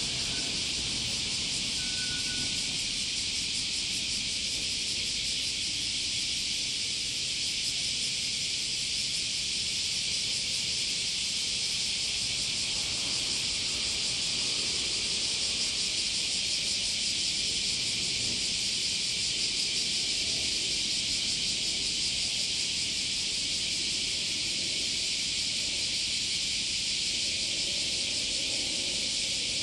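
Steady, high-pitched hiss of an insect chorus, unchanging in level, over a faint low rumble.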